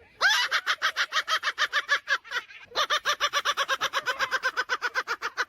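A bird calling in a long run of quick, evenly spaced notes, about eight a second, in two bursts with a brief pause about two seconds in.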